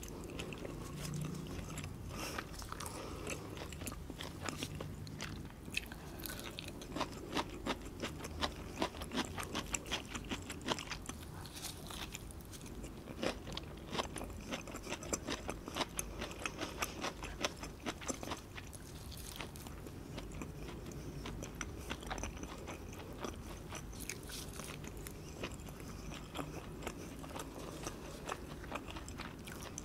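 Close-miked eating: chewing, with many sharp crunchy bites and mouth clicks. These come thickest in the first half and thin out to quieter chewing later.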